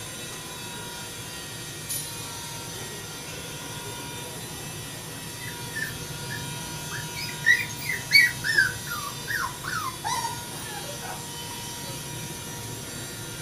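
Poodle puppies whimpering: a run of short, high squeaks, each falling in pitch, bunched around the middle, over a steady background hum.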